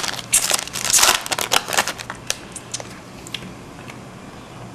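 Crinkling and rustling of an opened hockey card pack and its cards being handled and flipped through. The handling is busy for about the first two seconds, then thins to a few light card clicks.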